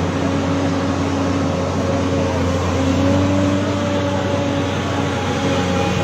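A large vehicle or machine engine running steadily at a constant speed, with a level hum throughout.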